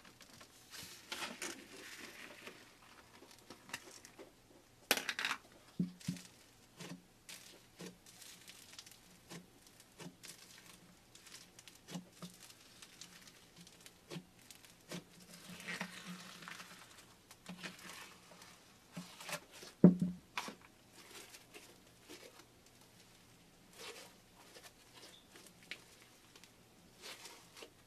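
Foamy pink slime being poked, pulled and stretched by hand, giving irregular sticky crackles, squelches and small pops, with one louder pop about 20 seconds in.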